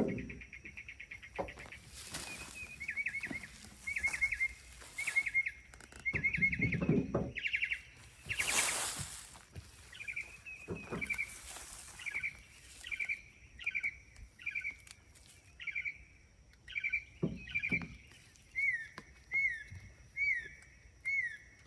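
A bird calling over and over: fast chirping trills in the first half, then short single falling notes about once a second. A few brief rustling bursts are mixed in, the loudest about halfway through, over a steady faint high-pitched tone.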